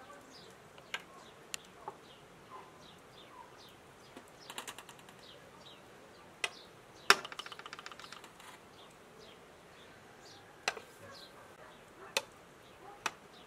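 Metal kebab skewers clinking as they are laid across the rim of a clay charcoal brazier: scattered sharp clinks, with a short rattle about four and a half seconds in and a loud clink about seven seconds in that runs on as a quick rattling clatter for a second or so.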